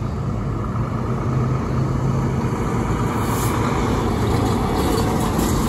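A Volvo semi-truck pulling a trailer drives past close by, its diesel engine running with a steady low drone that grows a little louder about two seconds in.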